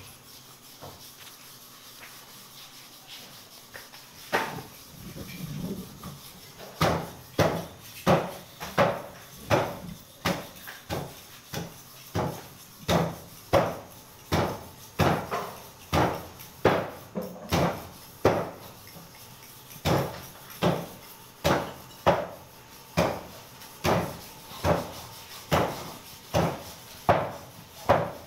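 A butcher's knife blade scraping in steady repeated strokes, about three every two seconds, one stroke about four seconds in and a regular run from about seven seconds on.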